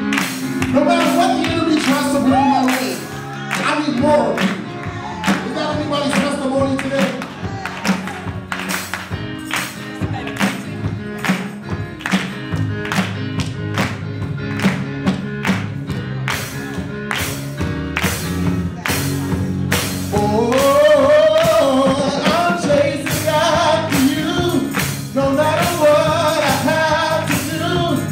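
Gospel choir singing with instrumental backing and a steady beat. The voices thin out in the middle and come back in strongly about twenty seconds in.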